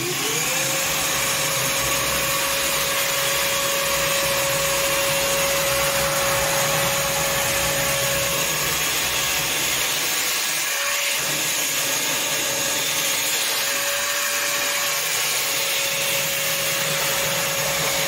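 Einhell TE-VC 18/10 Li cordless wet and dry vacuum running at full speed with a steady whine, after spinning up in the first half second, as it sucks up standing water from a bathroom floor.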